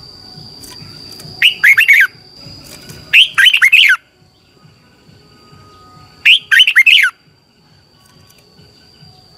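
Red-whiskered bulbul singing: three short, loud phrases of quick warbled notes, about a second and a half in, at three seconds and at six seconds.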